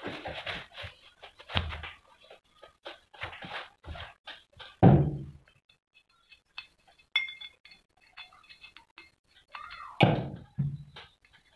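A cloth rubs on a cast-iron pulley, then come a few dull thunks as the heavy pulley is handled and set down on a cloth-covered surface. The loudest thunk comes about five seconds in and another near the end, with light metallic clinks of a small spring and bolt between them.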